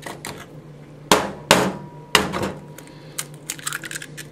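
Eggs being smashed into a bowl: three sharp knocks about a second, a second and a half and two seconds in, then a run of lighter clicks of shell and bowl.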